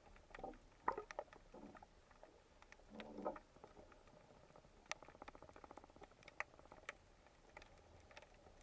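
Faint underwater ambience: scattered sharp clicks and crackles, two short louder rushes about one and three seconds in, and a fast run of fine clicks around the middle.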